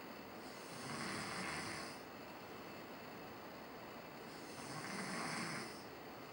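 A sleeping man snoring: two long snores about four seconds apart, over a steady background hiss.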